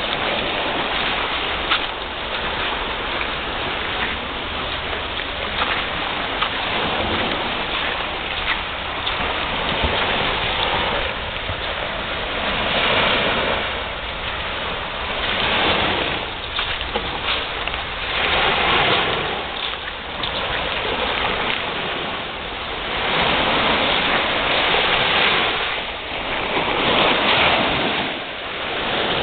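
Ocean surf washing on a beach: a steady hiss that swells and eases every few seconds.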